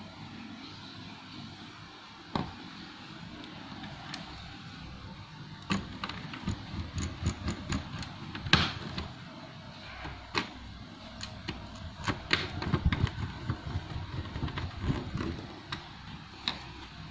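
Irregular sharp clicks, taps and light knocks of small hard parts being handled, loudest about halfway through, over a steady background hum.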